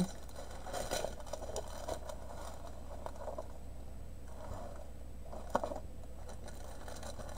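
Light rustling and crinkling of plastic-wrapped diamond painting canvases being handled and laid on a table, with soft knocks and one sharper tap about five and a half seconds in.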